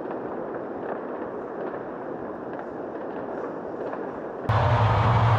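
Fireworks going off in a dense, continuous stream of many small reports. About four and a half seconds in, the sound cuts abruptly to something louder with a steady low hum.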